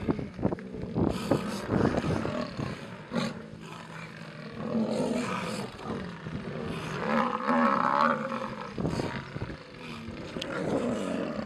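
Lions snarling and growling in several bouts.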